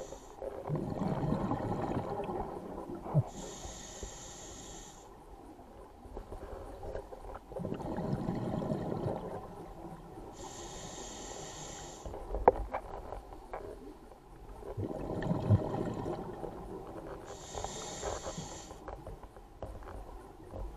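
Scuba diver breathing through a regulator: each breath is a short high hiss as the demand valve opens on the inhale, then a rumble of exhaled bubbles, about one breath every seven seconds, three breaths in all.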